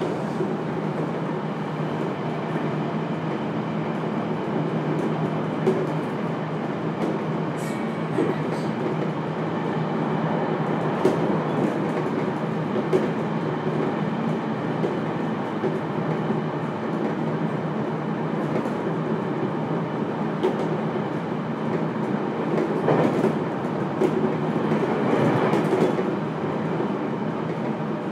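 JR Kyushu 811 series electric train running between stations, heard inside its motor car: a steady rumble of wheels on rail, with scattered clicks from the track. A low hum dies away right at the start.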